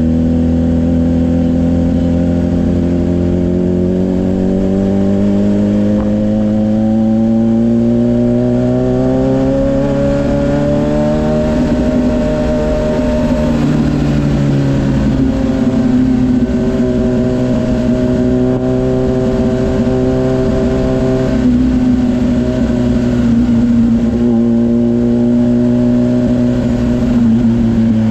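Kawasaki Ninja 1000SX's 1,043 cc inline-four engine heard from the rider's seat, pulling steadily up in revs for about twelve seconds. It then eases off and runs at a steady cruise, with small rises and dips in revs.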